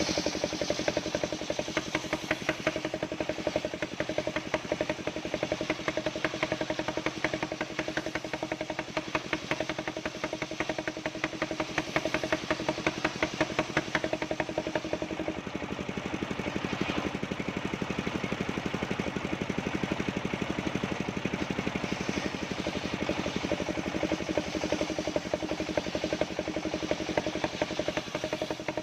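Engine of a portable circular-saw sawmill running steadily with a rapid, even firing beat. The sound eases a little in the middle, then comes back.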